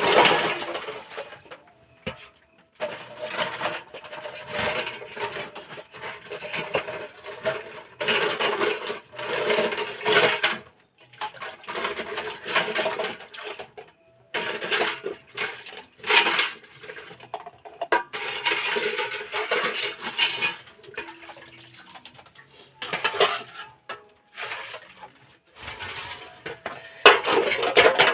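Cooking pots and utensils being handled, with irregular bursts of clattering and scraping a second or two long.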